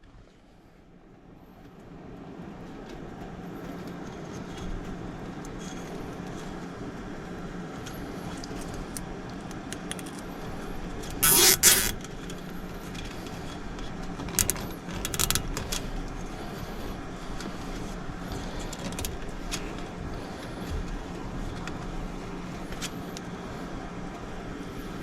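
A steady low machine hum with scattered clinks and rattles of hand work, and one louder rasping noise lasting about half a second about eleven seconds in.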